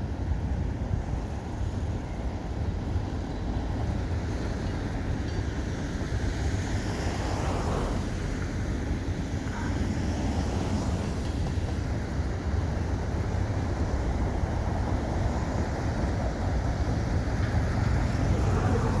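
Freight train rolling past, a steady low rumble of wheels on rail that grows slightly louder near the end.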